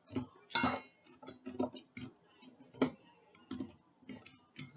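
A string of irregular light clicks and taps, two or three a second, with one sharper click about three seconds in.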